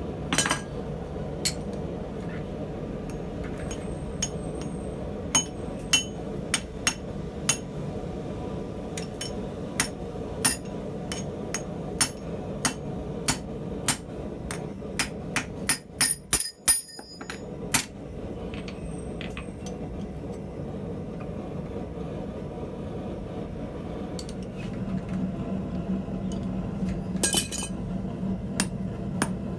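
Blacksmith's hammer striking iron on an anvil, sharp ringing blows about one to two a second with a brief pause partway through, over a steady low hum.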